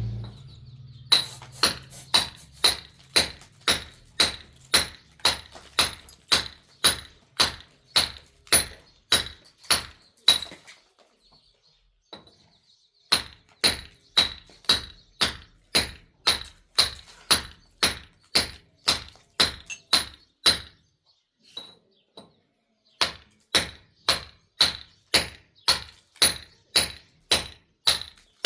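Rhythmic striking, sharp blows at about three a second in three runs with short pauses between them, each blow with a slight ringing edge.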